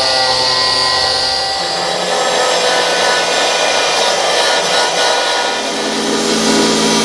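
An angle grinder grinding down fresh welds on the sheet-steel spare wheel well of a VW Beetle: a steady grinding with a motor whine whose pitch drops about a second and a half in as the disc is pressed on.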